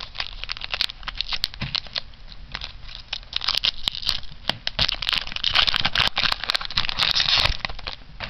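Foil trading-card booster pack wrapper crinkling and crackling in the hands as it is handled and torn open.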